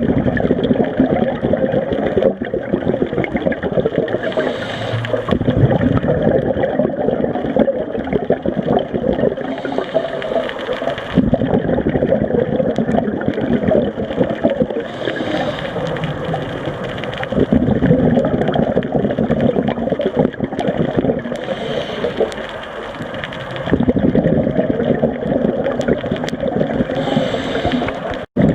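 Underwater sound of a scuba diver breathing through a regulator: a steady churning of water noise, with a hissing rush of exhaled bubbles about every five to six seconds.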